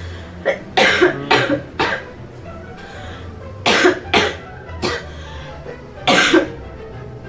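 A woman coughing in fits: four or five coughs in the first two seconds, a few more around the middle, and one last cough near the end. Soft background music plays underneath.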